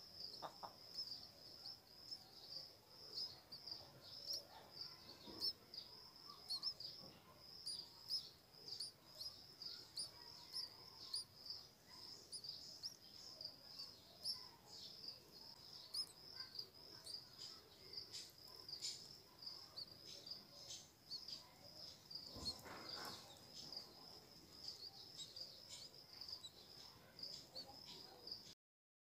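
Faint, steady high-pitched insect trill, pulsing evenly without a break, with scattered short high ticks over it.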